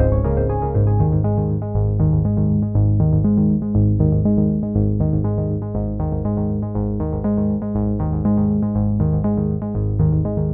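Background music: an upbeat synthesizer and keyboard track with a steady pulsing bass line, about two to three notes a second.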